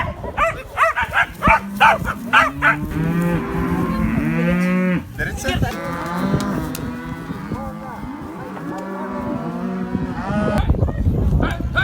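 A herd of cattle mooing, many calls at different pitches overlapping one another. A louder, noisy sound comes in near the end.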